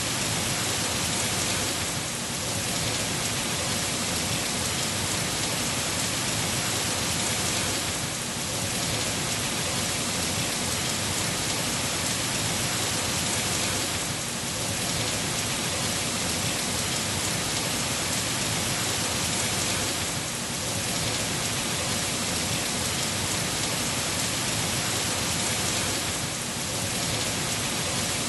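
Heavy rain falling steadily, a dense even hiss with a slight dip in level about every six seconds.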